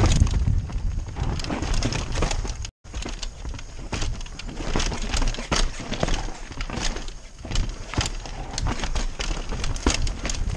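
Downhill mountain bike running fast over a rocky dirt trail: tyres crunching over stones and the bike clattering and rattling with each hit, in a dense, irregular stream of knocks. The sound drops out for a split second about three seconds in.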